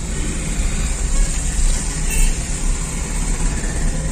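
Steady road noise inside a moving car's cabin: a low rumble with a hiss of tyres on a wet road.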